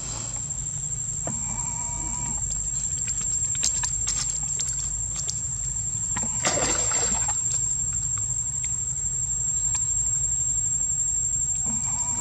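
Water splashing as a young monkey jumps and paddles in a shallow stone-edged pool, with one louder splash about six and a half seconds in and scattered small splashes and knocks around it.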